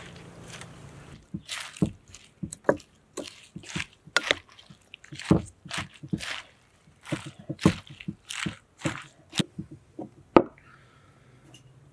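A spoon tossing shredded lettuce with a white dressing in a glass bowl: irregular wet crunching and squishing. It starts about a second in and stops near the end.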